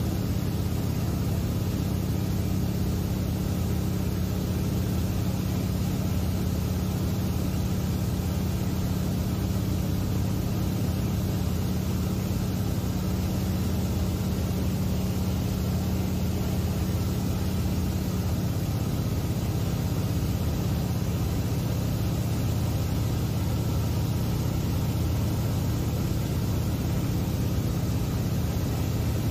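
A seaplane's engine and propeller running steadily in cruise flight, heard from inside the cabin as a constant low drone mixed with airflow noise. A low hum in the drone eases slightly about two-thirds of the way through.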